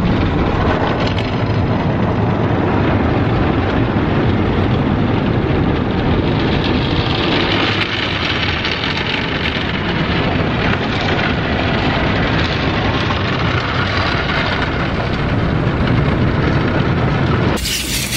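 Automatic car wash heard from inside the car: water spray and spinning wash brushes on the car body, a loud steady wash noise that turns harsher and hissier about seven seconds in. It cuts off abruptly just before the end.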